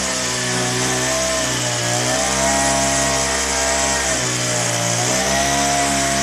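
Petrol string trimmer (brush cutter) engine running steadily while cutting grass. Its pitch dips twice, about one and a half seconds in and again about four seconds in, and picks back up each time.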